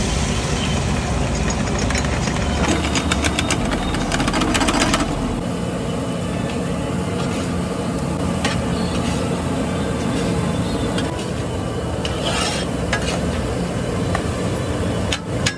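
Sliced onions frying in hot mustard oil in a large aluminium kadai, a steady loud sizzle over a low rumble. A metal spatula scrapes and clicks against the pan in a quick run a few seconds in and again near the end.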